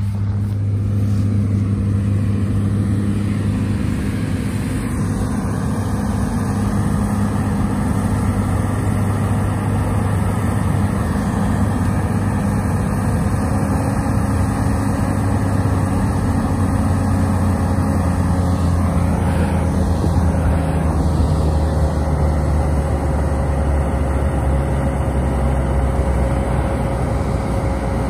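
John Deere S-series combine harvester running while harvesting wheat: a loud, steady low engine and threshing drone.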